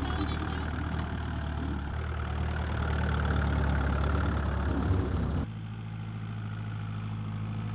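A small farm tractor's engine running steadily as it is driven, heard up close. About five and a half seconds in, the sound cuts to the engine heard from farther off, quieter.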